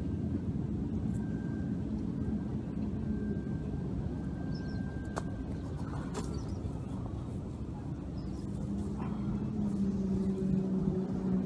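Steady low rumble of distant engines, with one motor's steady hum growing louder over the last few seconds.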